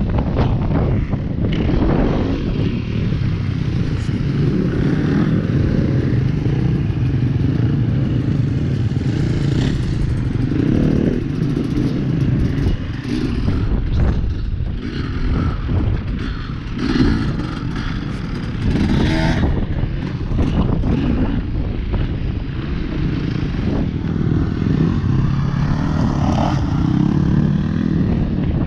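Enduro dirt bike engine running at low revs close to the microphone, the pitch rising and easing as the bike is ridden slowly over rough gravel, with a few knocks and rattles partway through.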